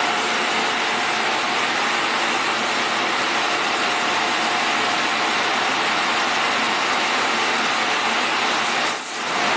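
Steady hiss of machinery running, with a faint steady high tone; the noise dips briefly near the end.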